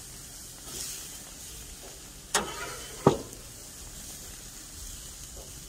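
Shrimp and scallops sizzling lightly on a hot gas grill grate, with two sharp clicks of a metal spatula against the grate about two and a half and three seconds in.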